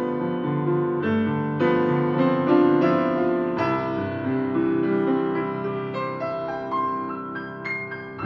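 Steinway grand piano played solo, with sustained chords over a low bass. It swells loudest about two seconds in, then grows softer toward the end as a few higher single notes ring out.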